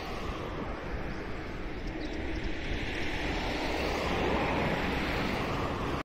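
Steady rushing roar of a jet airliner flying overhead, swelling slightly after about three seconds, with wind buffeting the microphone.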